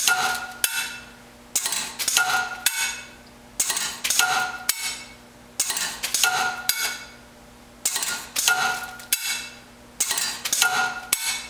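Cascade static-dwell drop-slide checkweigher running small poly bags of parts at full speed: each bag drops onto the metal weigh pan and is let through, making a clatter with a short metallic ring. This repeats about every two seconds, each cycle in two quick clacks.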